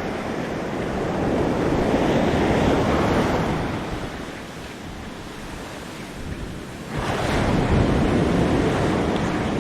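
Surf washing onto the shore in two swells a few seconds apart, with wind buffeting the microphone.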